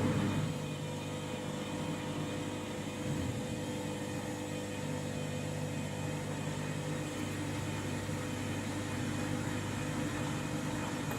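Washing machine motor and drum running during a short intermediate spin, a steady hum with several held tones. It drops slightly in level about half a second in, then holds steady.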